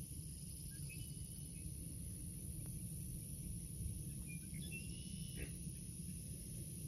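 Open marsh ambience: a steady low rumble and a constant high insect drone, with a few faint, short bird chirps about a second in and again around four to five seconds in.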